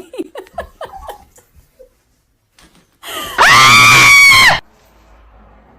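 A very loud scream held at one pitch for about a second, starting a little past three seconds in and cutting off abruptly, preceded by short voice sounds.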